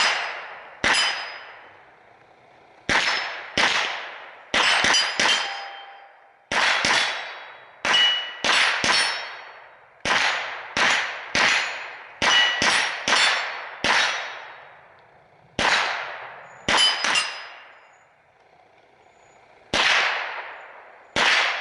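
Semi-automatic .22LR shots from an AR rifle running a Bravo 22 conversion kit, about two dozen rounds fired one at a time at an uneven pace, some in quick pairs and triples. Each shot is followed by a ringing metallic clang that dies away over a second or so, typical of hits on a steel target.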